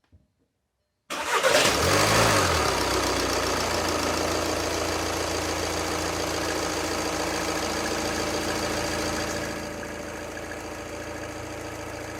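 2014 VW Passat TDI's 2.0-litre four-cylinder turbodiesel starting about a second in after only a couple of turns of cranking, flaring briefly, then idling steadily; the idle gets quieter about nine seconds in. The quick, regular start after the fuel filter change is the sign that the filter canister was full and needed no long priming.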